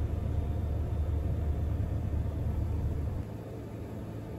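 Light aircraft's engine and propeller droning in flight, a steady low rumble that drops suddenly in level about three seconds in.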